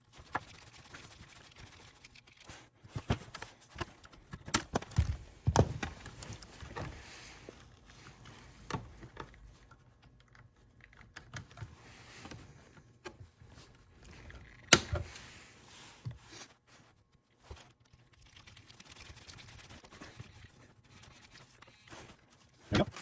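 Small clicks, taps and knocks of an RC truck's plastic and metal steering and hub parts being handled as the assembly is taken apart and refitted with its dog bone drive shaft. The strokes come at irregular intervals, with a cluster about five seconds in and the loudest knock about fifteen seconds in.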